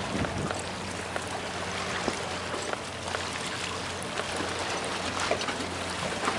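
Sea water lapping and trickling among the granite blocks of a breakwater, with scattered light clicks and scuffs of footsteps on the rock, over a faint steady low hum.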